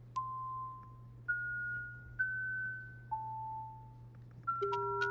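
Synthesized single-pitch notes from a JavaScript cymatic-plate simulation's generative mode, playing a random, dissonant melody. The notes come about one a second and jump up and down in pitch, each starting with a soft click and fading over about half a second. Near the end three notes come close together, one much lower than the rest.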